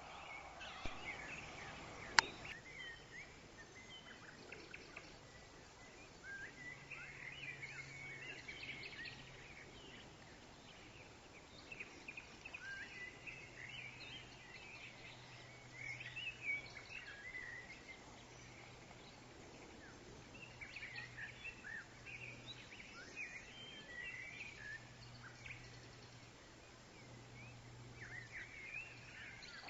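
Woodland songbirds chirping in scattered bursts of short, quick notes every few seconds over a soft, even hiss of wind in the trees. A single sharp click about two seconds in is the loudest moment.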